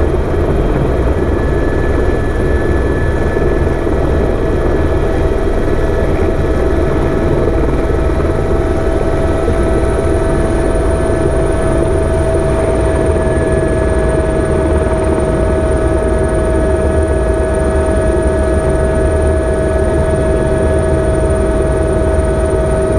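Helicopter engine and rotor running steadily, heard from aboard: a constant rumble with a steady whine on top, whose highest tone drops slightly in pitch about ten to thirteen seconds in.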